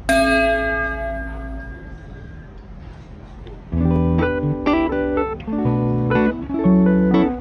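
Background music: one ringing chord fades out, then strummed guitar chords start in a steady rhythm a little past halfway through.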